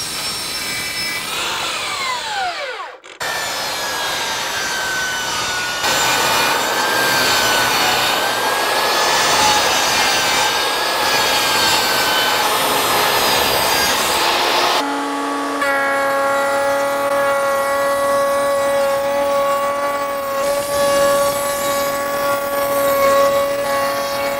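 A DeWalt saw blade winding down with a falling whine. Then a DeWalt jobsite table saw runs and rips long white shiplap boards into narrow strips: a steady motor whine under the noise of the blade cutting through the board.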